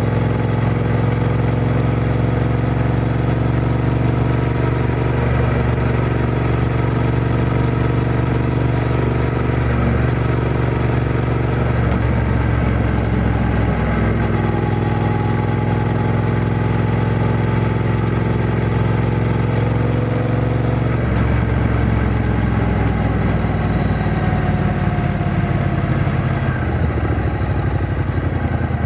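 Triumph Bonneville T120's 1200 cc parallel-twin engine running while riding. The engine note shifts abruptly several times and its pitch falls gradually over the last several seconds.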